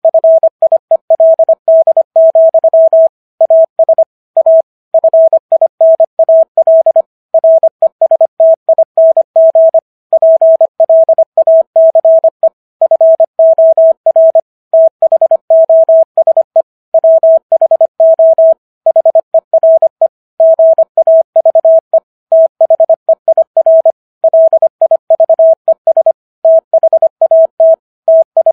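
Morse code sent at 25 words per minute: a single steady mid-pitched tone keyed rapidly on and off in dots and dashes, with slightly longer gaps between letters and words. The text being sent is the Gettysburg Address.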